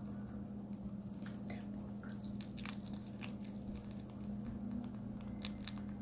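A domestic rabbit nibbling and chewing a peeled banana: small, irregular bites and mouth clicks. A steady low hum runs underneath.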